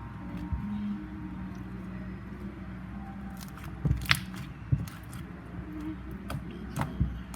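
Slime being squished and worked by hand, with a few sharp clicks and pops, the loudest about four seconds in and two more near the end, over a steady low hum.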